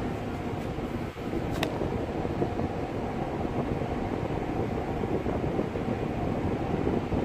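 Steady rushing and rumbling on the deck of a moving tanker ship: wind over the phone's microphone mixed with the ship's machinery. A brief sharp sound is heard about one and a half seconds in.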